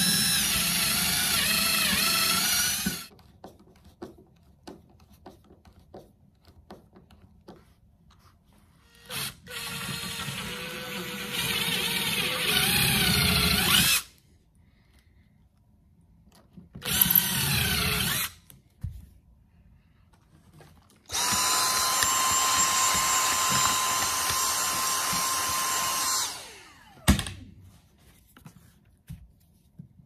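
Power drill running in four separate bursts, drilling holes and driving screws through a carpeted boat deck to mount a fender lock. Its whine rises and falls with the trigger in the shorter runs; the last and longest run holds a steady pitch for about five seconds, then winds down. A sharp click follows about a second later.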